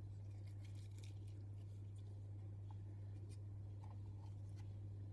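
Faint light clicks and rustles of hands arranging artichokes in a clay pot, over a steady low hum.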